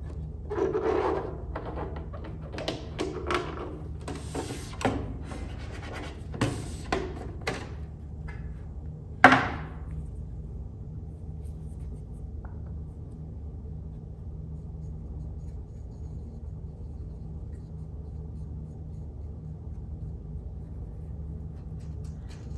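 Hands handling and wiping down the plastic case of a Commodore 1541 disk drive: rubbing, scratching and a run of knocks, with one loud knock about nine seconds in. After about ten seconds only a steady low hum remains.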